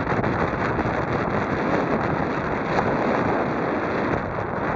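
Wind buffeting the microphone: a steady rushing noise with no distinct events.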